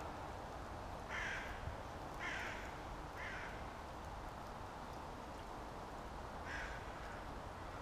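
A bird calling: three short calls about a second apart, then one more near the end.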